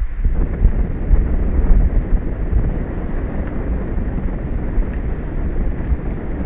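Wind buffeting an outdoor microphone: a loud, unsteady low rumble with a hiss on top.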